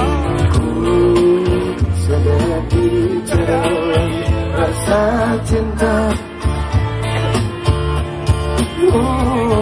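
A man singing into a microphone over amplified backing music with a steady bass line.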